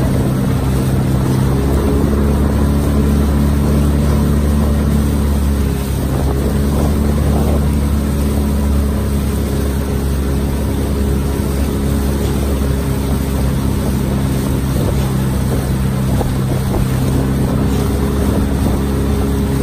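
Outboard motor of a coach's launch running steadily alongside a rowing eight: an even, low engine drone.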